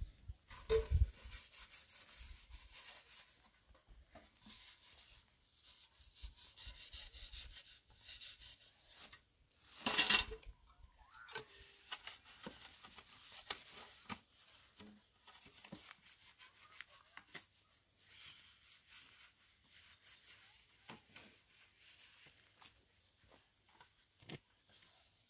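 Scattered light rubbing and scraping sounds with small knocks, and one louder scrape about ten seconds in.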